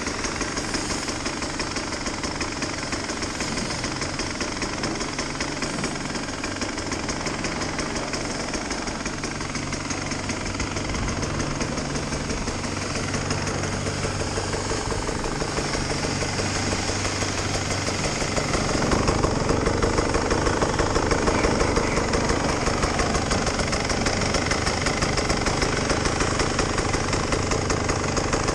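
KTM two-stroke enduro motorcycle engine idling with an uneven, knocking beat, its pitch wavering a little. It gets louder about two-thirds of the way in, as the exhaust silencer comes close.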